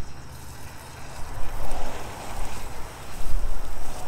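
Food sizzling in hot peanut oil in a frying pan on a propane camp stove, under a gusty wind rumble on the microphone that comes and goes and is the loudest sound.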